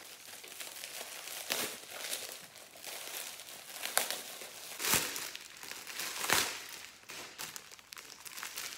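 Silvery metallic plastic packaging bag crinkling and rustling as it is handled and pulled open, with several louder crinkles in the middle.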